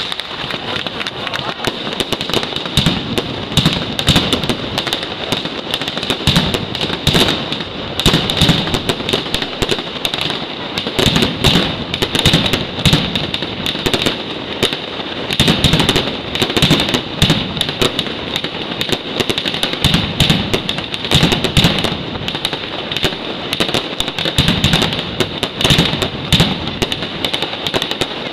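Night mascletà: a dense, unbroken barrage of firecracker bangs and crackle, with aerial fireworks going off among them.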